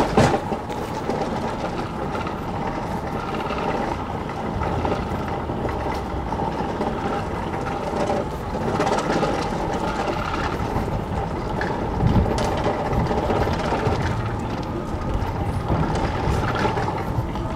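Street traffic noise with a steady engine hum from a running vehicle. There is a brief loud knock right at the start.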